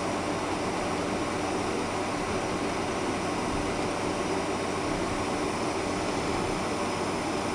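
Steady cabin noise of a Boeing 747-400 taxiing, heard inside the cabin: a constant hiss with a low hum from the engines at taxi power and the air conditioning, unchanging throughout.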